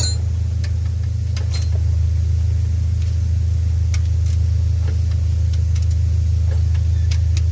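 Steady low engine hum, unbroken throughout, with a few light clicks and taps over it.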